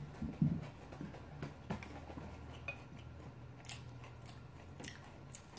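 Eating at a table: chopsticks and a spoon clicking against a ceramic ramen dish, with chewing. A few soft low thumps near the start, then scattered light clicks.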